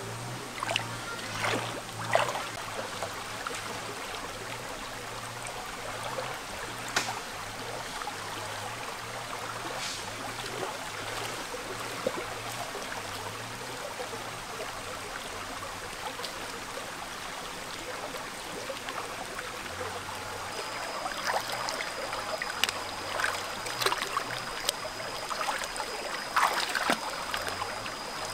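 Shallow rocky stream running steadily, with occasional splashes of feet and hands in the water that come more often in the last several seconds as hands search the streambed. A thin steady high tone joins about two-thirds of the way in.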